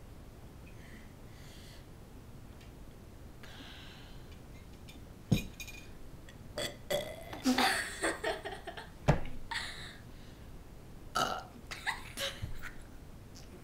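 A person burping deliberately, a string of burps after drinking coffee. The burps start about five seconds in after a quiet stretch, with the densest run of them around the middle.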